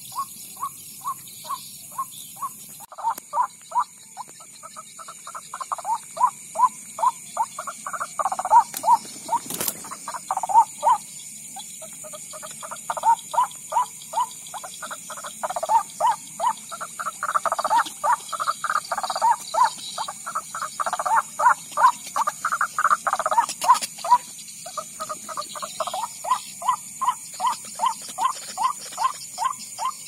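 Monotonous croaking calls of the white-breasted waterhen (ruak-ruak), repeated about three to four times a second in long overlapping bouts, played as a lure from an electronic bird caller's loudspeaker.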